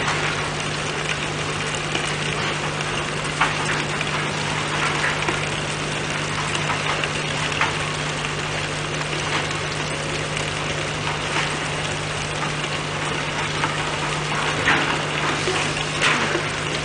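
Tipper lorry's diesel engine idling with a steady low hum, over a constant wash of heavy plant machinery noise. Scattered sharp knocks and clatters punctuate it.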